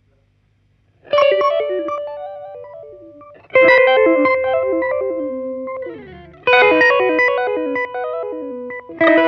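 Electric guitar played through an EarthQuaker Devices Arpanoid arpeggiator pedal. Four chords are struck a few seconds apart, starting about a second in. Each rings out and fades while the pedal adds quick stepping arpeggio notes over it, and the pitch slides down just before the third chord.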